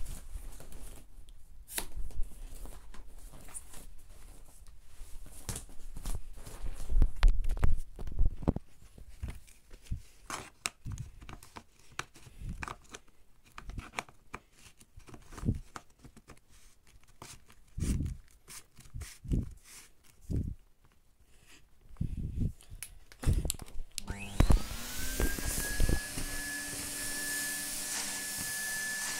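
Irregular knocks, clicks and rustles of the Numatic NRV 200 tub vacuum cleaner being handled, with quiet gaps between them. Near the end the vacuum is switched on: its motor spins up with a quick rising whine and then runs steadily with a rush of air.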